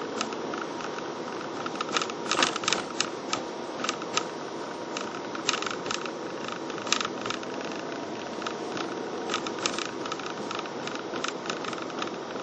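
A car driving slowly, heard from inside the cabin: a steady road and engine hum with irregular rattling clicks that come in bunches.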